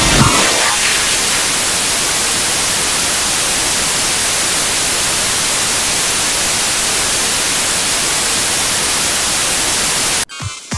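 Loud, steady static hiss like white noise, strongest in the high end. It cuts off suddenly near the end.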